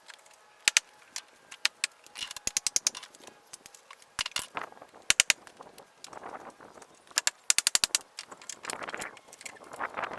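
Sharp clicks and quick rattling runs of about eight clicks, with rough scraping between, as a rotted old wooden door jamb is knocked and pried loose.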